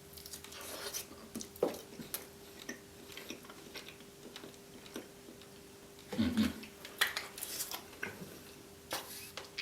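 Scattered light clicks and taps of tableware and food being handled at a meal, over a faint steady hum, with a short, louder muffled sound about six seconds in.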